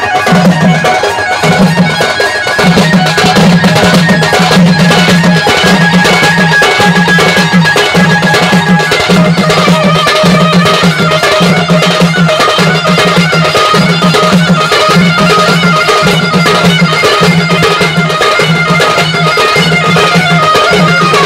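Odia folk drum ensemble of slung barrel drums (dhols) and large kettle drums beaten with sticks, playing a fast, driving rhythm. A shrill reed pipe holds long, steady notes over the drumming.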